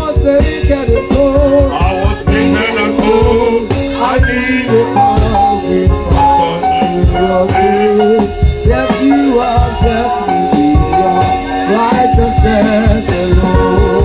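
Gospel worship music played by a band with drum kit and guitar, with singing over it.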